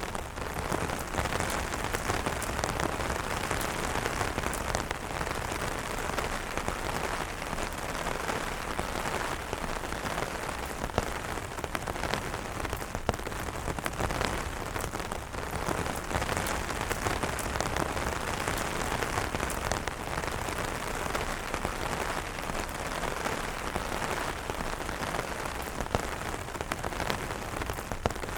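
Steady heavy rain falling on umbrellas: a dense, even hiss dotted with many sharp individual drop hits.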